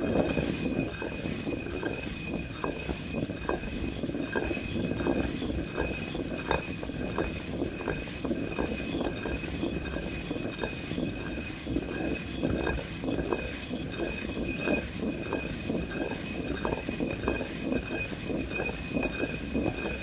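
Basalt stone hand mill (quern) turned steadily by its wooden handle: the upper millstone grinds on the lower one with a continuous gritty rumble and many small crackles as grain is ground to meal.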